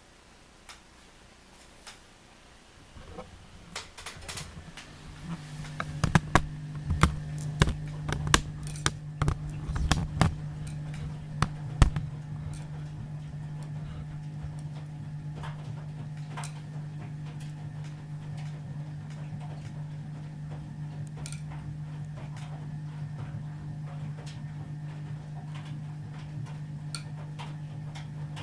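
Ardo washing machine's new drain pump starting about four seconds in and then humming steadily. Irregular knocks and clatters ring out over the first several seconds of its run, then only the even hum remains.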